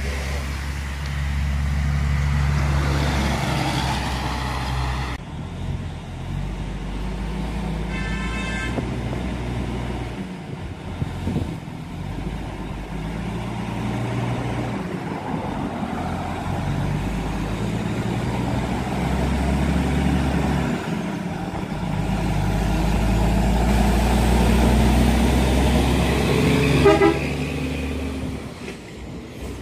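Large trucks' engines running with a steady low hum, changing at several cuts, and a short vehicle horn toot about eight seconds in and another near the end.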